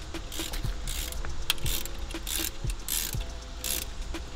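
Ratchet wrench worked back and forth in short strokes, each stroke a quick burst of clicking, about two or three a second.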